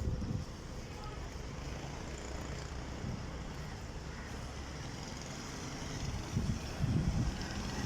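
Steady low rumble of a motor vehicle running, with wind buffeting the microphone in gusts near the end.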